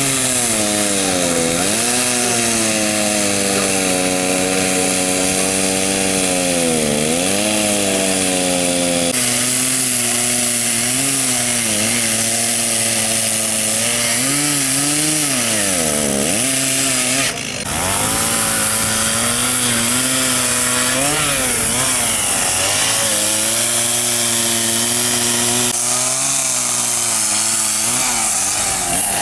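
Large petrol chainsaw running hard while carving a tree trunk. Its engine pitch repeatedly sags as the bar bites into the wood and climbs again as the cut eases. There is a momentary drop about 17 seconds in.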